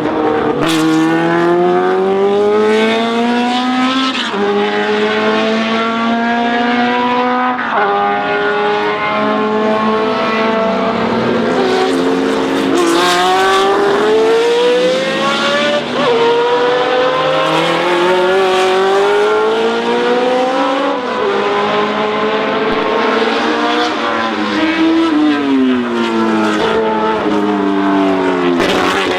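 1970s Lola sports-prototype racing engine accelerating hard through the gears: the pitch climbs steadily, then drops sharply at each upshift, repeated several times.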